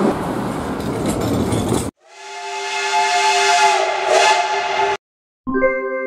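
Steam locomotive whistle sounding a steady chord of several tones over loud hissing steam for about three seconds. Before it comes street traffic noise, and near the end, after a brief silence, an electronic keyboard jingle begins.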